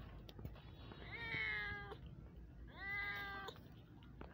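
Two high, drawn-out meows from very young kittens, each about a second long. The first comes about a second in, the second just under three seconds in.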